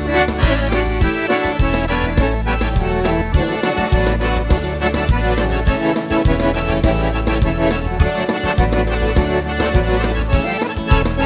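Accordion playing a lively tune over a steady bass line and regular drum beat: the instrumental opening of a gaúcho song from Rio Grande do Sul.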